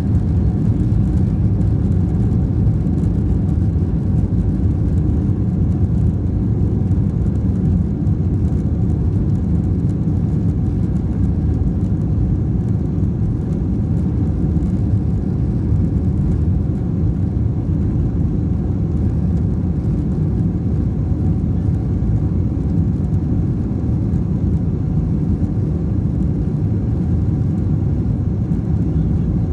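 Steady low rumble of a Boeing 747-400's engines, heard from inside the passenger cabin, holding level with no rise or fall.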